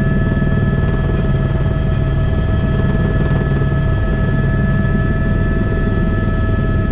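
Airbus AS350 B3 (H125) helicopter in flight, heard from the cockpit: steady main-rotor beat under the whine of its single turboshaft engine, with several steady high tones.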